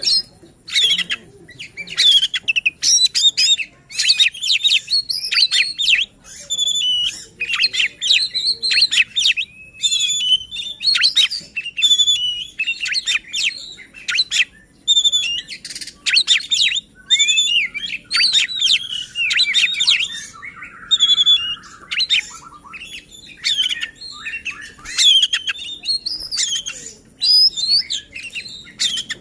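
Oriental magpie-robin (kacer) singing without pause: a fast, varied run of high whistles, chirps and trills, broken by a harsh buzzing rasp from about 18 to 21 seconds in.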